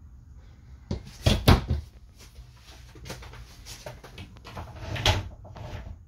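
Wood-framed medicine cabinet door being handled and shut: a few sharp knocks and clatters about a second in, smaller clicks after, and another clatter about five seconds in.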